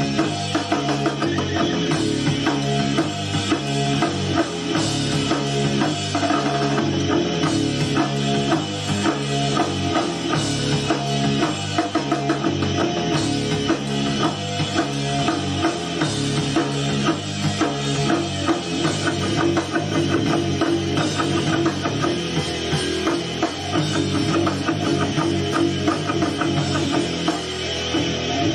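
Rock band playing an instrumental take: a drum kit keeps a steady driving beat with cymbals over bass guitar and electric guitar.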